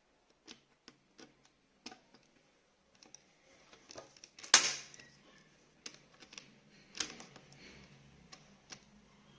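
Small screwdriver working a screw into a plastic Beyblade launcher: scattered light clicks and ticks of metal and plastic being handled, with a sharper knock about four and a half seconds in and another at about seven seconds.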